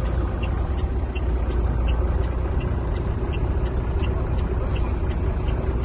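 Truck's diesel engine idling steadily, heard from inside the cab, with a light regular ticking about two to three times a second.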